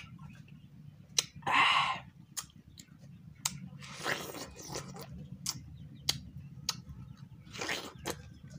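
Close-up eating of watermelon: three loud, wet, juicy bites, about a second and a half in, around four seconds in and near the end, with sharp wet mouth clicks and smacks between them over a steady low hum.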